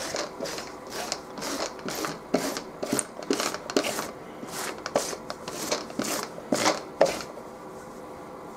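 A sticky lint roller rolled briskly back and forth over a polyester waffle-weave tea towel, a quick rasping stroke about two to three times a second, stopping about seven seconds in.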